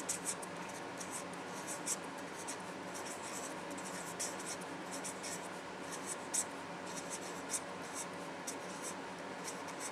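Handwriting with a pen: short, irregular scratching strokes, over a steady low room hum.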